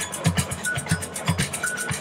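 Samba bateria playing a fast batucada: deep drum beats about four times a second under dense snare and shaker strokes, with short high tones cutting in between.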